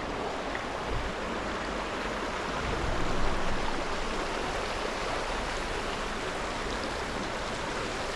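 Steady rush of running water from a water feature.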